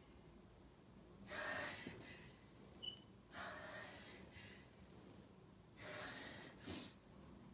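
A person breathing in heavy gasps: three breathy heaves about two seconds apart, each about a second long, with a short high squeak between the first two.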